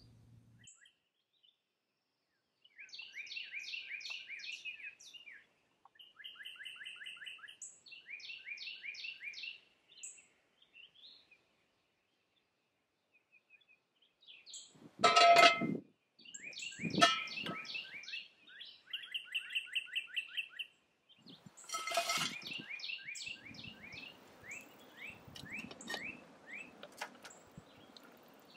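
Songbirds singing: repeated trills of quick down-slurred chirps, phrase after phrase. About halfway through come three loud clanks a few seconds apart.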